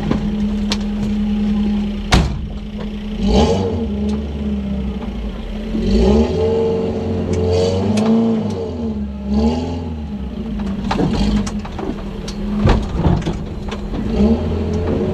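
Modified off-road 4x4's engine running, then revved up and down several times as the vehicle crawls slowly over rough dirt. Sharp knocks and clatter from the vehicle jolting over the ruts are heard throughout.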